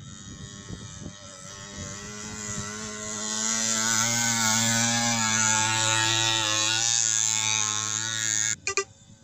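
Small 50cc motorcycle engine running under load as the bike rides through a muddy field. It grows louder as the bike nears, holds a steady pitch with slight dips, then cuts off abruptly near the end.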